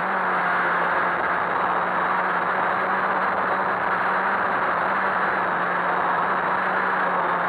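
Quadcopter's electric motors and propellers running steadily in flight, picked up by the onboard camera: an even noisy hum with a constant low tone.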